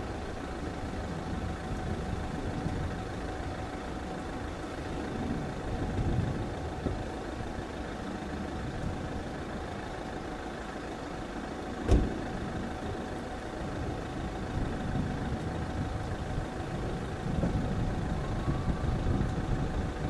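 Steady low engine rumble with a thin steady hum, growing a little busier near the end. A single sharp knock about twelve seconds in.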